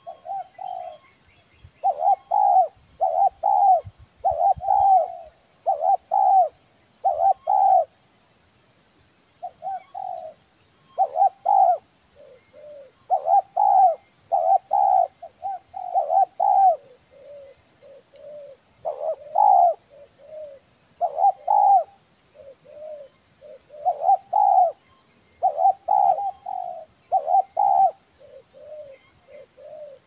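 Spotted dove cooing over and over in phrases of several throaty coos, with softer, shorter coos in the gaps between phrases.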